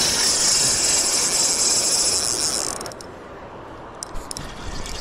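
Pflueger President spinning reel's drag buzzing steadily as a hooked steelhead runs and pulls line off the spool, stopping a little under three seconds in. A few separate clicks follow, and a short burst of drag comes again near the end.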